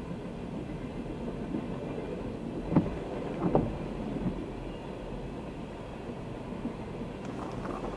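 Freight train of tank cars rolling past with a steady rumble, with two sharp clanks about three seconds in and a lighter one a little later.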